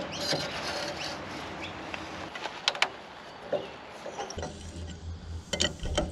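Metal clinks and taps of a large adjustable spanner on the nut and bolt of a trailer coupling as it is undone, a few separate sharp clicks, with a low rumble in the second half.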